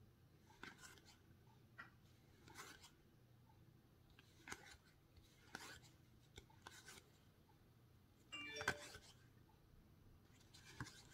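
Faint rustles of Marvel Champions game cards sliding off one another as they are moved one at a time through a hand-held stack, about one card a second, with one louder slide near the end.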